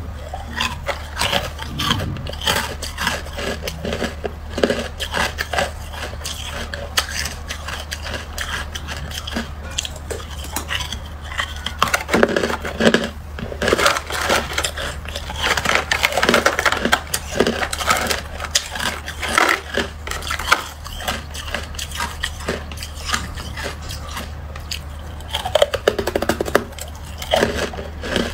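Freezer frost crunching and crackling as it is bitten and chewed and broken apart by fingers in a plastic tub, over a steady low hum. The crunching comes in louder clusters about halfway through and again near the end.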